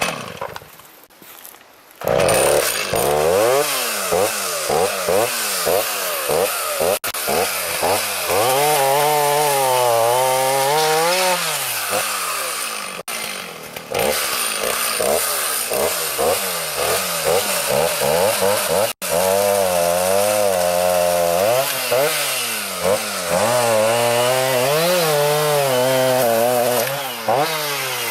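Two-stroke chainsaw starting up about two seconds in and running hard, its engine pitch repeatedly dipping and rising as it takes load and frees up in the cut.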